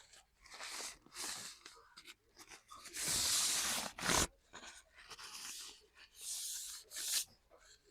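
A series of short rasping, scraping strokes, each about half a second to a second long, the loudest about three seconds in, with a sharp click or two between them: hand work on a small object.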